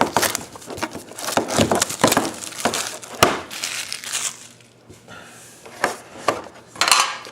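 Trading-card pack wrappers crinkling and tearing as packs are ripped open, with irregular sharp crackles.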